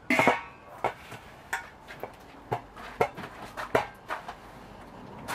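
A stainless steel lid clatters onto a large stock pot with a brief metallic ring. Then comes a run of sharp knocks and clinks, roughly two a second, as the pot is picked up and carried off.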